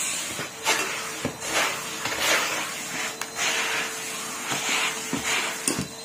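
Numatic Henry vacuum cleaner running, its rushing suction noise swelling and dropping irregularly as the hose and nozzle are moved about, with a few knocks.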